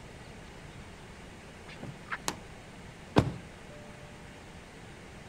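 Car door clicks open, then slams shut with one loud thud about three seconds in.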